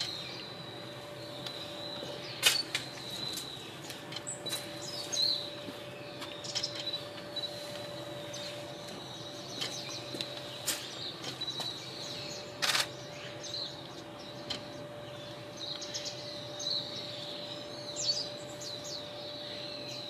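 Azure-winged magpies giving short chirping calls at intervals, with two sharp clicks, one a couple of seconds in and one about two-thirds through, over a steady faint hum.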